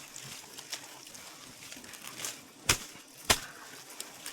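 Two sharp knocks about half a second apart over faint background noise, the second louder.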